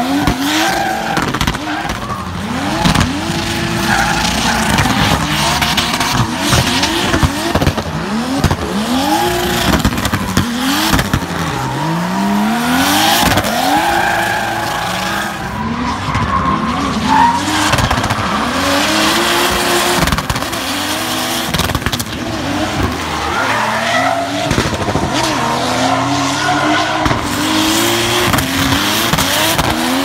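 BMW E46 drift car with a Toyota 2JZ inline-six engine revving up and down over and over while drifting, with sharp pops and bangs from its anti-lag system and the rear tyres squealing and skidding.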